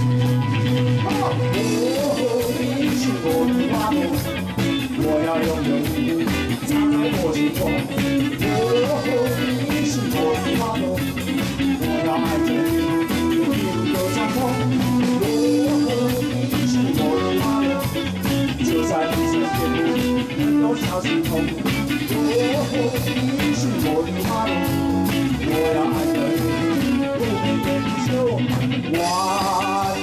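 A live band playing amplified rock-pop: electric guitars, drum kit and keytar over a steady beat.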